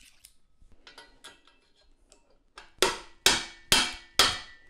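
Faint small clicks of metal parts being handled, then a quick run of sharp metallic strikes about half a second apart, each ringing briefly. They come from a bearing press tool being driven to seat a sealed 15x28x7 cartridge bearing into the aluminium frame's pivot bore.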